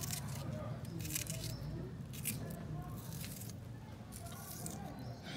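Wet squishing of a bare hand mixing raw conch meat, sliced onions and carrots in marinade in a steel pot, in irregular squelches about a second apart. A steady low hum runs underneath.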